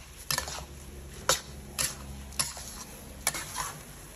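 Kitchen utensils clicking and scraping against cookware, a sharp knock about twice a second at uneven spacing, over a low steady hum.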